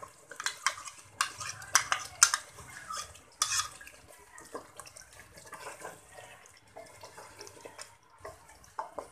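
A steel spoon and a wooden spatula clicking and scraping against a cooking pan as yogurt is scraped off the spoon and stirred wetly into a thick chicken curry. The clicks are dense and sharp for the first three seconds or so, then the stirring goes on more softly.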